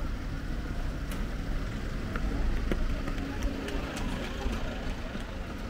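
A low, unsteady rumble of wind buffeting the microphone on an exposed hilltop, with a few faint clicks and distant voices.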